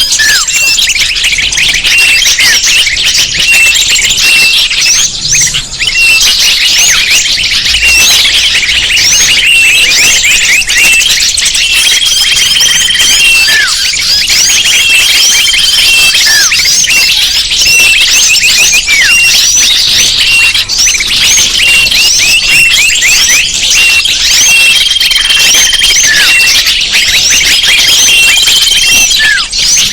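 Bird-lure recording: a loud, dense chorus of many small birds chirping and twittering without pause, with a held high whistle returning every few seconds and occasional falling notes.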